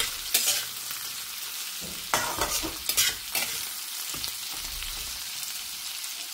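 Sliced spiny gourd and onion sizzling in oil in a kadhai, with a metal spatula scraping against the pan in several strokes as it is stirred.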